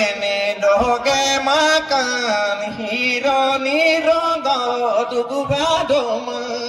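A man chanting in a sing-song melody into a microphone, amplified over a PA. His pitch bends between held notes, and the chant ends on a long held note.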